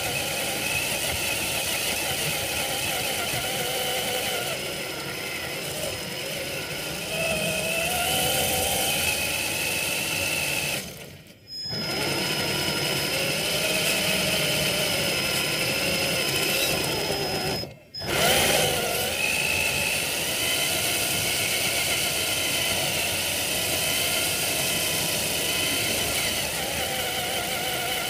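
Traxxas TRX-4 RC crawler's electric motor and gearbox whining, the pitch rising and falling with the throttle. The whine cuts out briefly twice, about eleven and eighteen seconds in.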